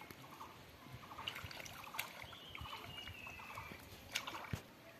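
Faint splashing and squelching of bare hands groping through shallow muddy water, with a few small clicks.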